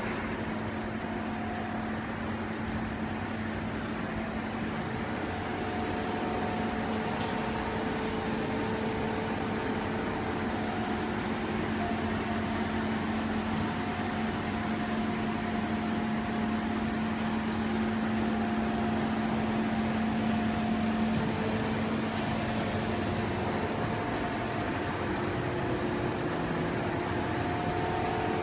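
Steady hum and fan-like whoosh of machinery running in a laser-cutting workshop, with a constant low droning tone and fainter higher tones that come and go. It grows slightly louder near the end.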